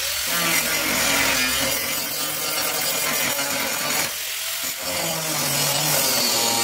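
Angle grinder biting into the steel sill of a car body, running steadily with a whining hum under a harsh grinding rasp. The rasp eases briefly about four seconds in, then bears down again.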